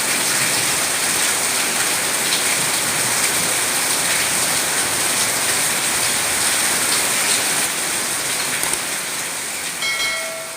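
Steady heavy rain, an even hiss of drops. Near the end a brief pitched chirp sounds over it, and the rain begins to fade out.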